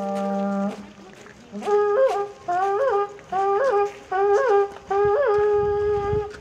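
Horagai conch-shell trumpets blown by yamabushi: a long held note that stops just under a second in, then five short blasts about a second apart, each jumping up in pitch and falling back, the last held a little longer.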